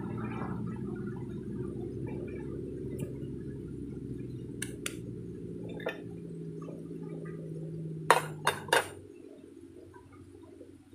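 Aluminium German army mess-kit pot clinking against a small metal camp stove as it is set on top: a few light ticks, then three sharp metallic clinks close together near the end. A steady low rumble runs underneath and drops away once the pot is in place.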